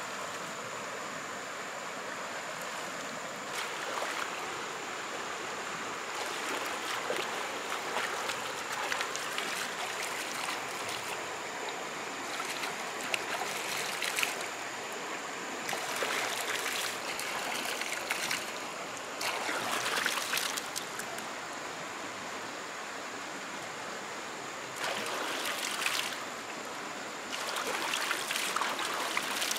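Running water of a forest stream, with irregular louder stretches of splashing lasting a second or two each.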